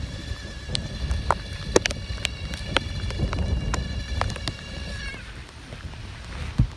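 Tropical-storm wind gusting and rumbling on the microphone, with scattered sharp taps. A steady high whine runs alongside and stops about five seconds in.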